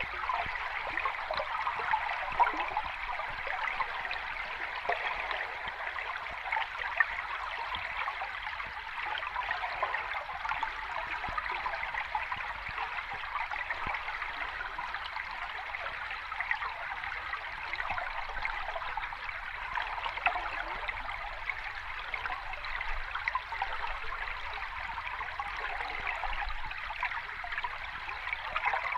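Flowing water of a small cascade, splashing steadily without a break.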